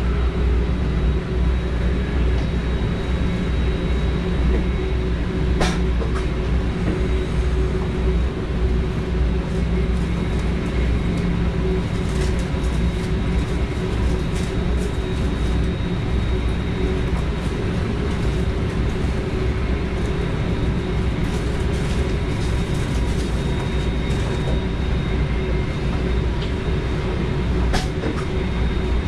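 NS DDZ double-deck electric multiple unit running along the line, heard from the driver's cab: a steady low rumble of wheels on rail with a faint high whine. A sharp click about six seconds in and another near the end, with fainter ticks in between.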